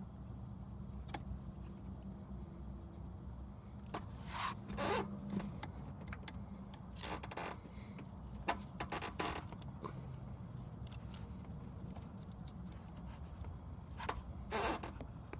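Vinyl electrical tape being pulled off the roll in several short rasping pulls while wrapping a wiring connector, over a low steady hum.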